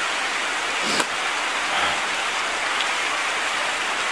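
A steady, even hiss, like rain, with a single sharp click about a second in.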